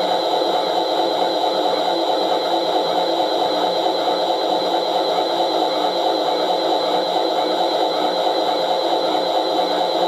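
Toy washing machine's small electric motor running with a steady, high-pitched whir as the drum turns during its spin cycle.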